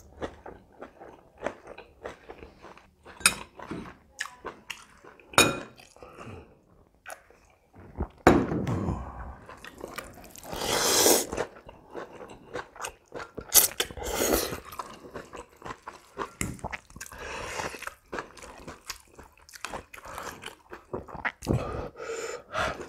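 Close-miked eating sounds: wet chewing and lip smacks throughout. Long slurps of spicy instant noodles in soup come about ten seconds in and again near fourteen seconds.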